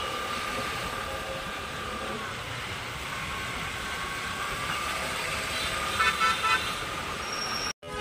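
City road traffic with vehicle horns: a held horn note in the first couple of seconds, then a quick run of short honks about six seconds in. The sound drops out for a moment just before the end.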